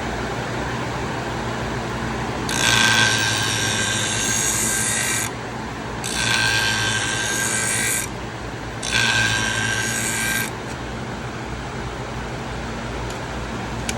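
A pinking-shear blade ground across the spinning abrasive wheel of a Wolff Twice As Sharp scissor sharpener in three passes, each one to three seconds long, a rasping grind with a thin whine over the sharpener's steady hum. These are heavy passes taking extra metal off so the tip will cut.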